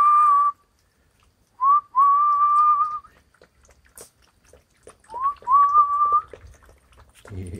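A person whistles a call three times. Each note is a short upward slide into a pitch held steady for about a second, and the first is already sounding at the start. Faint clicks of puppies eating kibble from a metal pan come between the whistles.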